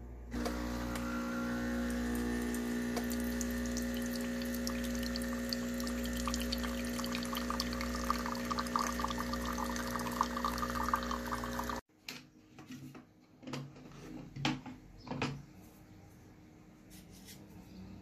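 Home espresso machine's pump humming steadily as coffee pours into a mug, with a thickening crackle of liquid in the second half. It cuts off suddenly about 12 seconds in, followed by a few light knocks and clicks of objects handled on a bench.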